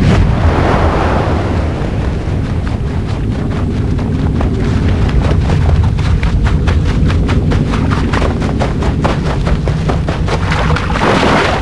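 Dramatic soundtrack: a loud low rumble with a fast, even beat of sharp strikes, about five a second, starting about two seconds in and stopping near the end.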